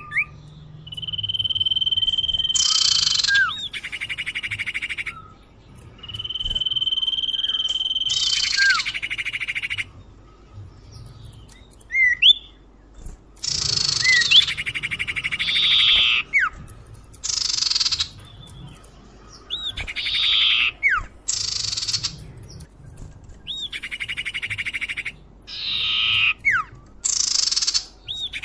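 Common iora (sirtu/cipoh) lure song: a long, steady high whistle that runs straight into harsh, buzzy rasping notes, then a string of shorter rasping phrases laced with quick downward-slurred whistles.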